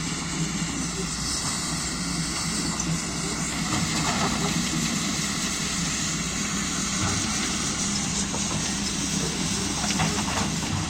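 Excavator's diesel engine running steadily, with a high whine that wavers in pitch and a couple of brief knocks.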